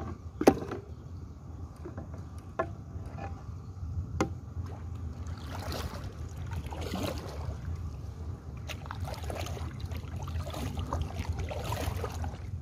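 A few sharp knocks on the boat, the loudest about half a second in, then from about five seconds in a hand paddle dipping and splashing in the water, roughly one stroke a second, as the small pipe boat is paddled along.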